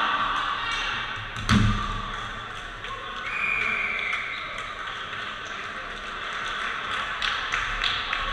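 Dodgeball game in an echoing gym: balls thudding and tapping on the wooden floor over a hubbub of players, with one loud sharp impact about a second and a half in and a brief high squeal a couple of seconds later.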